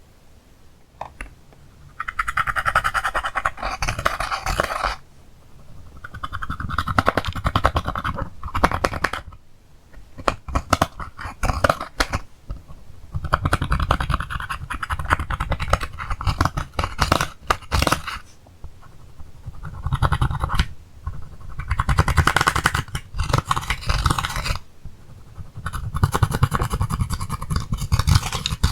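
Slime being kneaded and squished by hand, making dense sticky crackling in repeated bursts of a few seconds with short pauses between.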